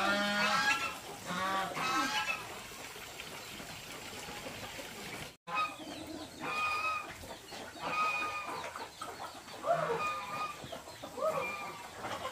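Domestic chickens clucking and calling in a string of separate calls, broken by a very short gap about five seconds in.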